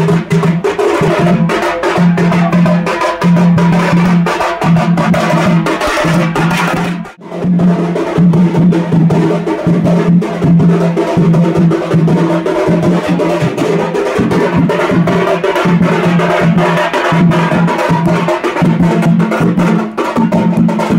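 Large barrel drum beaten with sticks in a fast, driving rhythm, its low boom pulsing on each group of strokes, with a brief break about seven seconds in.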